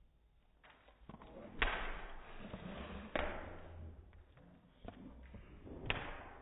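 Yellow Labrador grabbing at a hand-held chew bone: three sharp knocks, about one and a half, three and six seconds in, with scuffling and rubbing between as the dog's mouth and body bump close against the phone.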